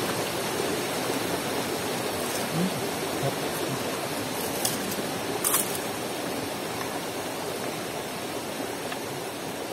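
Small rocky river flowing steadily over stones, with a couple of short sharp clicks about halfway through.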